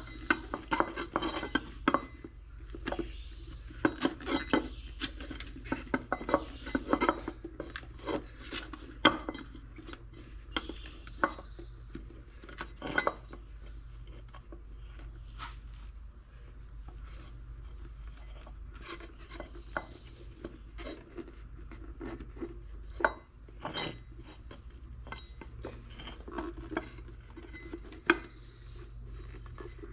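Hands working an inner tube into a small wheelbarrow tire on its rim: scattered clicks, light knocks and rubbing as the parts are handled, over a steady low hum.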